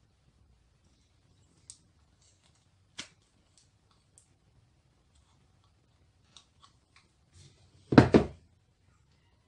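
Small plastic clicks and ticks as the orange plastic trigger parts of a hot glue gun are handled and worked with pliers, then a much louder thump with a short rattle about eight seconds in.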